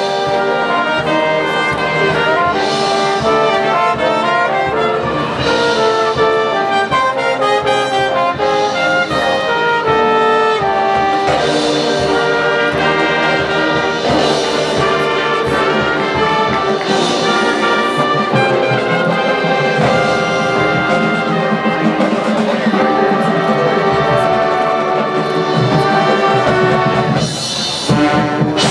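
High school marching band playing its field show, brass carrying sustained chords and melody over percussion. The sound drops briefly about a second before the end, then comes back with a loud accent.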